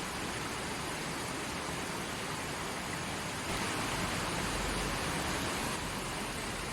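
Forest stream flowing: a steady rush of running water that swells a little louder for about two seconds midway.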